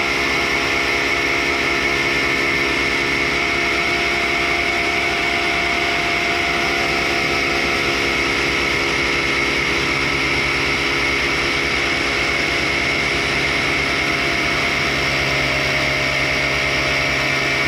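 1942 Cincinnati universal tool and cutter grinder running steadily with its thin wheel sawing into a bar of raw carbide. It makes an unchanging whine of several held tones over a hiss.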